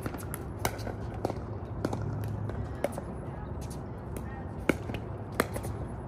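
Pickleball paddles hitting plastic balls on several courts: about a dozen sharp, irregular pops, the loudest a little past two-thirds through and again near the end, over faint voices.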